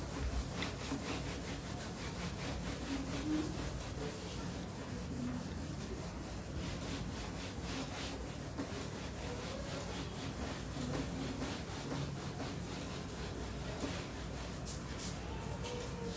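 Cloth duster wiping marker writing off a whiteboard: many repeated rubbing strokes.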